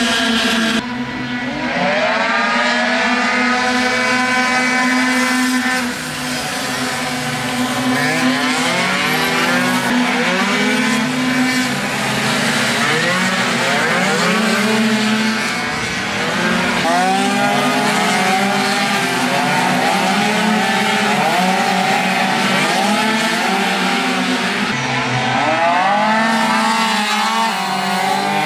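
Several tuned two-stroke racing scooter engines screaming at high revs, their pitch climbing and dropping repeatedly as they accelerate, shift and pass, often more than one at once.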